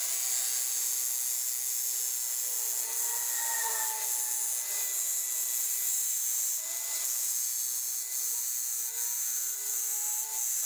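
Makita CC301D 12-volt cordless glass cutter's diamond blade running through a glass bottle under a water feed, heard sped up: a steady high-pitched whirring hiss with little low end.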